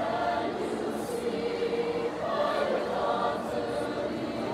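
Mixed-voice high school choir singing, held chords that shift in pitch.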